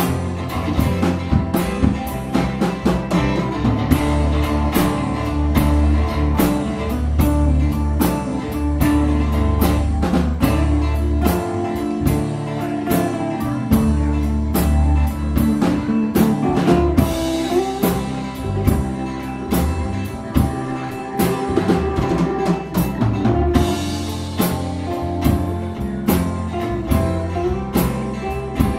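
Live blues band playing an instrumental passage with no vocals: electric guitars and a metal-bodied resonator guitar over drum kit and bass, with steady drum hits and a guitar note sliding up in pitch about seventeen seconds in.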